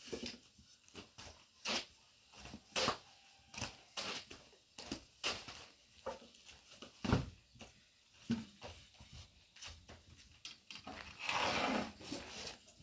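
Light wooden knocks and taps, irregular and about once a second, from a long thin rolling pin working flatbread dough on a round wooden board. Dry baked flatbread sheets rustle as they are handled and stacked, with a longer rustle near the end.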